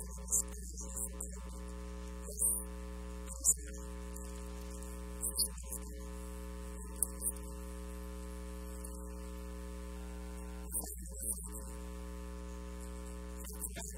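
Steady electrical mains hum with several steady overtones, broken by a few short clicks.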